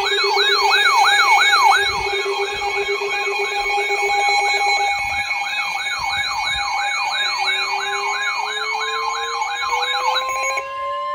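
Electronic alert siren of a weather radio sounding for a severe thunderstorm warning: a tone warbling rapidly up and down, about two and a half sweeps a second, over steady tones. A slowly rising tone joins it later, and near the end the warble gives way to a single steady tone.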